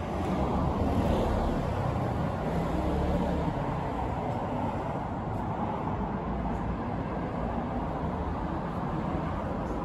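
Steady low rumbling vehicle noise, a little louder in the first few seconds.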